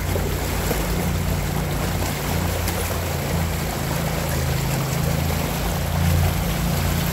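Rushing river water, a steady noise with a strong low rumble.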